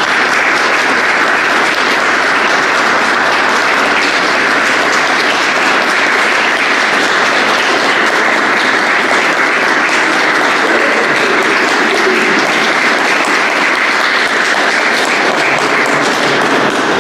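Long, steady audience applause.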